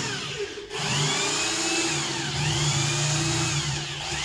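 Electric drill running, boring an entry hole through marine plywood for a jigsaw blade. The motor starts about a second in and then runs with a steady hum.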